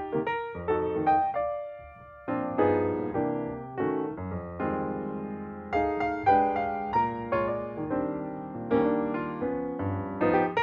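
Background music: solo piano playing chords and melody notes, each struck and left to fade.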